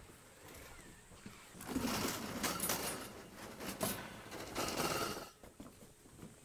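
Metal clattering and rattling of a folding hammock stand's frame being unfolded, from about a second and a half in until about five seconds.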